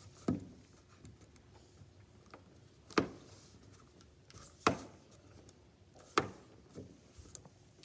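Hands working modelling clay on a paper-covered table: four sharp knocks spread out, the loudest about three seconds in, with a few smaller taps between.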